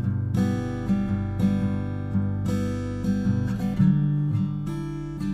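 Peaceful background music of acoustic guitar, plucked and strummed chords.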